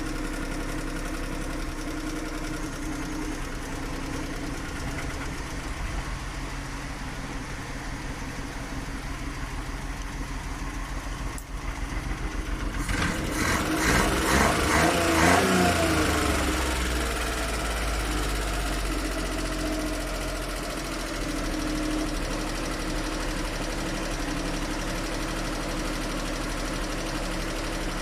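Suzuki F6 three-cylinder engine idling, revved up once about halfway through and then settling back to idle. The engine has a carburettor problem that makes it hard to start and misfire.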